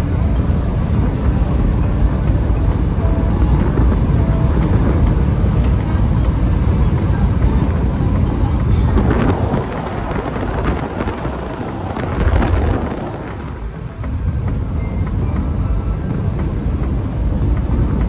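Car driving on an old tarmac runway, heard from inside the cabin: a steady low rumble of engine and tyres with wind noise. It eases off briefly a little after the middle.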